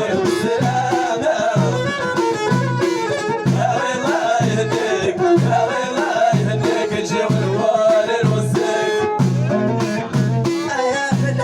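Amazigh (Berber) song in an instrumental stretch: a wavering melody line over a steady, evenly pulsing bass beat and sharp percussion.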